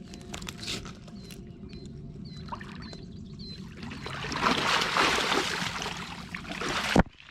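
Water splashing and sloshing for about three seconds over a low steady background, then a sharp click as it cuts off.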